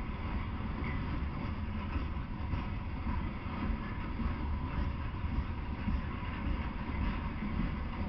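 Loaded Norfolk Southern coal hopper cars of a freight train rolling past on the rails: a steady low rumble of wheels on track.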